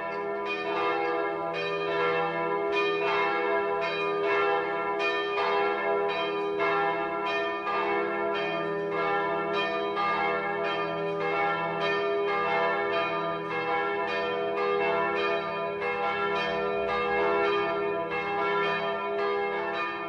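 Church bells ringing a peal: a steady run of struck strokes, each ringing on into the next over a lingering hum.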